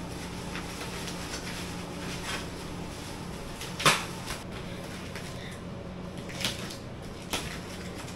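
A parcel wrapped in plastic and packing tape being handled and opened: light rustling with a few sharp clicks and knocks, the loudest about four seconds in, over a steady low hum.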